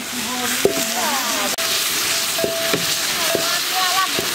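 Water poured into a large metal pan of hot oil and fried potatoes, sizzling steadily, while a long metal ladle stirs and knocks against the pan a few times.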